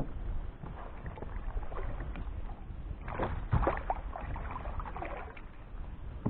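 Water splashing and sloshing as a large hooked catfish thrashes at the surface beside a kayak while it is being gripped.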